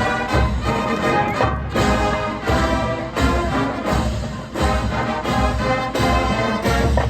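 Marching band playing: brass over a steady beat of bass drums.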